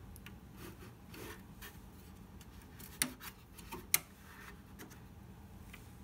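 Faint rubbing and scraping of fingers working a laptop-style RAM module out of its slot deep inside a Synology DS718+ NAS, with two sharp clicks about three and four seconds in as the module is freed.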